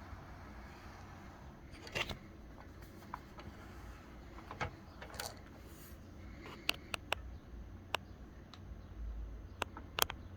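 Scattered light clicks and taps of a plastic toy RC car being handled and turned over, coming more often in the second half, with a low hum underneath.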